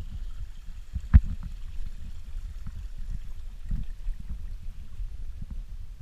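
Footsteps on a wooden boardwalk with low rumbling handling noise from the hand-held camera, and one sharp knock about a second in.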